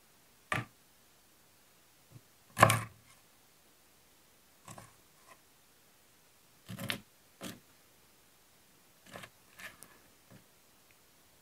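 A large kitchen knife chopping raw chicken into pieces on a thick wooden chopping board: about eight irregular knocks and thuds with short gaps between them. The heaviest chop comes a little past two seconds in and another strong one near the middle.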